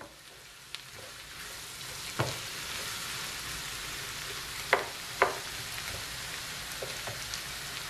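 Sliced onions sizzling in a non-stick frying pan as they are stirred with a wooden spoon: a steady frying hiss with a few knocks of the spoon against the pan, the loudest two about five seconds in.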